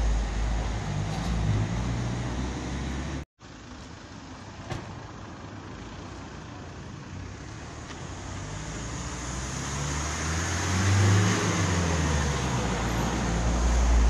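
Street traffic: a motor vehicle's engine running close by, cutting out abruptly about three seconds in, then a quieter traffic hum as another engine grows louder toward the end.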